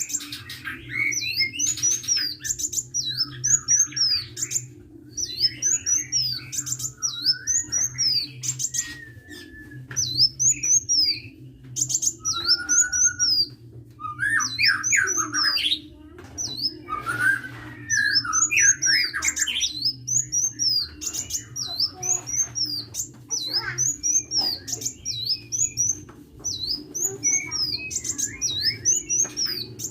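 Sunbird singing vigorously: a fast string of short, high, rising-and-falling notes repeated over and over, broken by lower twittering trills, over a steady low hum.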